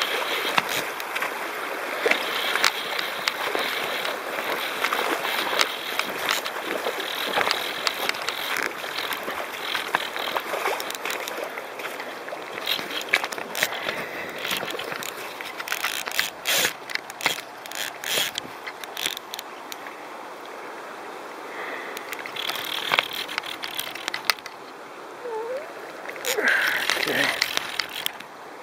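Fishing reel ratcheting and clicking rapidly during the fight with a hooked coho salmon, the drag giving line as the fish runs, over the wash of the river.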